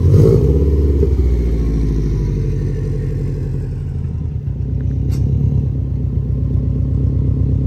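2004 Subaru Impreza WRX STI's turbocharged flat-four boxer engine and exhaust revving up about a second in, then running steadily as the car pulls away, the note building again near the end.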